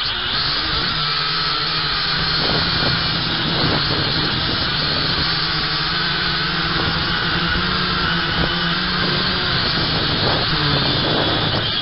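Potensic F183DH quadcopter's four electric motors and propellers whining steadily in flight, picked up close by the drone's own onboard camera, with slight wavers in pitch as it manoeuvres.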